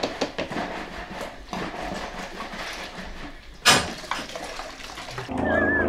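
Plastic jugs and bottles knocking and clattering on a table while elephant milk formula is mixed and stirred, with one sharp louder knock about three and a half seconds in.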